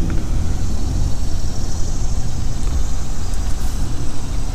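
Steady low rumble of a car driving slowly, engine and tyre noise heard from inside the vehicle.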